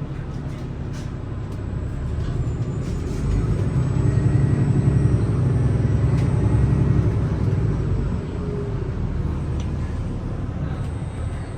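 Cummins B6.7 diesel of a Gillig hybrid bus running, heard from inside the cabin. The engine grows louder about three seconds in and eases back near eight seconds. A faint high steady whine runs under it.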